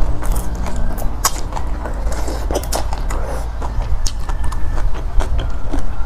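Close-up eating sounds of a person slurping noodle soup and chewing, with many short wet smacks and clicks of the mouth over a low steady hum.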